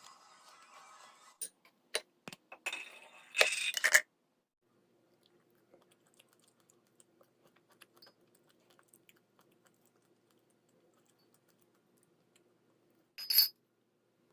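Scattered sharp clicks and knocks of objects being handled, with a short loud clatter about three seconds in and another brief one near the end, over a faint low hum.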